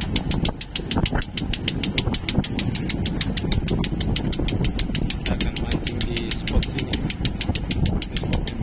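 Small boat's engine running steadily with an even, rapid knocking of about six beats a second, over a low rushing of water and wind.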